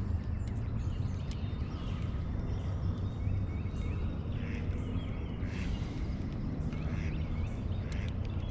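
A duck quacking a few short times in the second half, over a steady low outdoor rumble, with small birds chirping.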